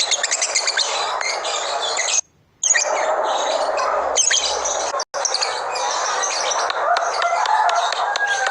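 Lovebirds chirping and chattering continuously, many calls overlapping in a dense high twitter. The sound cuts out completely for a moment about two seconds in, and again very briefly about five seconds in.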